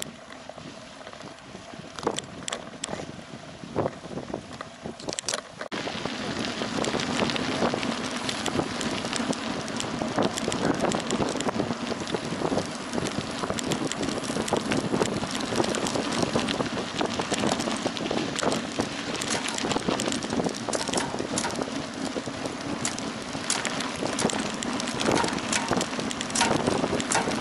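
Mountain bike riding noise: tyres and frame rattling over a dirt and gravel track, with wind buffeting the microphone. Fairly quiet with scattered clicks at first, it turns abruptly louder and denser about six seconds in.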